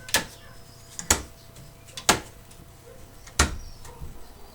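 Four sharp knocks about a second apart from parts of a Victor Victrola phonograph cabinet being handled and shut.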